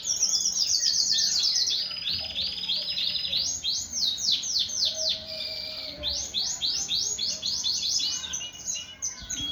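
Shirazi canary, a male in full breeding condition, singing a long unbroken song of rapid trills and quick downward-sweeping notes, pausing briefly twice.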